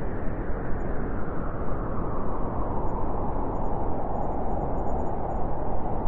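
Arctic wind ambience: steady rushing wind over a deep low rumble, the higher part of the rush growing stronger about halfway through.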